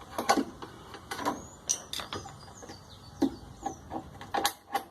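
Irregular clicks and knocks of hard plastic parts being pried apart with a screwdriver as the injector arm comes off the washing machine's agitator gearbox, with a few short squeaks of parts rubbing; the loudest knocks come near the end.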